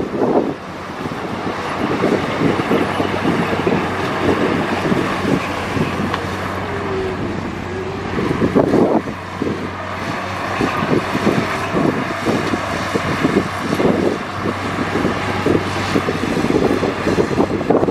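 Diesel engine of a Komatsu D58E bulldozer running steadily at work, with wind buffeting the microphone in irregular gusts.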